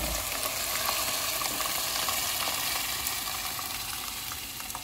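Hot oil and fried tomato-onion masala sizzling in a pan as boiled whole black lentils and black-eyed beans with their cooking liquid are poured in: a steady crackling hiss with small pops, and a low thump right at the start.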